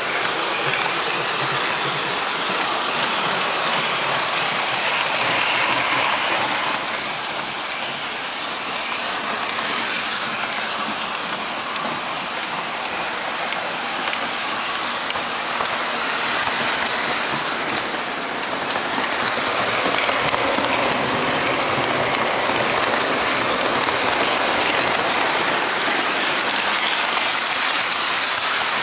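MTH O-gauge model Amtrak Genesis passenger train running past on its track: a steady rushing, rattling noise of the metal wheels rolling on the rails.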